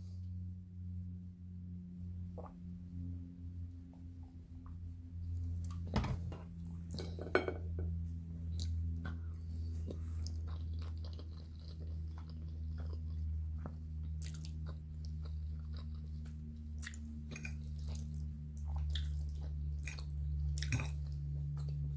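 Close-up chewing of a mouthful of spaghetti, with scattered short wet clicks and smacks over a steady low hum.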